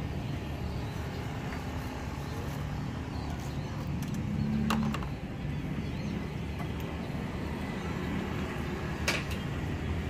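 Steady rumble of street traffic, swelling as a vehicle passes about halfway through, with a couple of sharp clicks.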